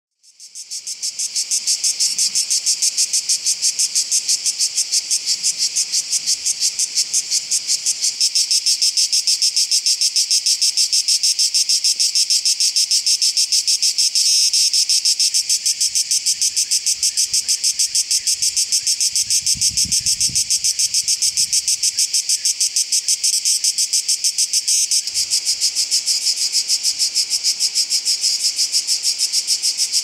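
Manna cicada (Cicada orni) singing: a loud, high-pitched rasping song made of rapid, evenly spaced pulses, fading in over the first second and then holding steady.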